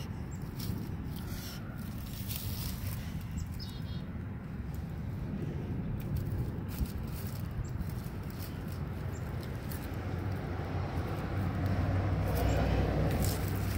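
Outdoor street ambience: a steady low rumble that swells near the end as a vehicle goes by, with scattered light dry clicks and crackles from a puppy chewing a stick among dead leaves.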